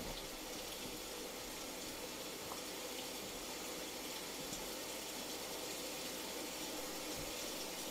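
Steady, soft hiss of falling rain, even and unbroken.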